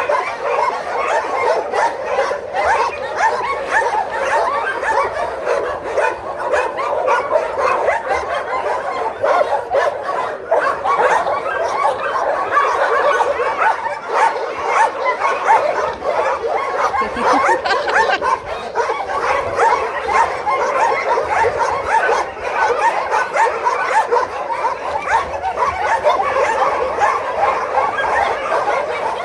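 Many kennelled dogs barking and yipping at once, overlapping without a pause into a steady din.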